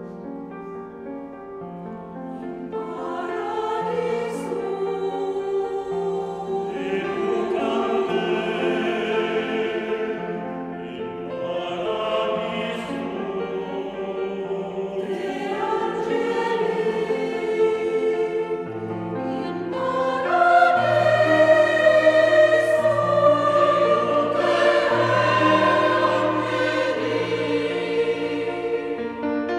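Mixed choir of men's and women's voices singing a requiem in sustained chords, in the long echo of a stone cathedral; it starts softly and swells louder about twenty seconds in.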